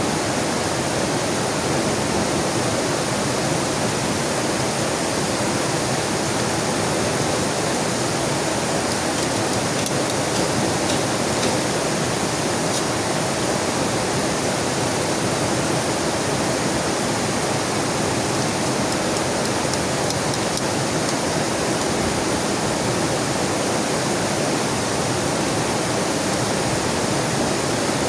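Heavy rain falling beside a swollen, rushing river: a steady, dense wash of water noise that does not change.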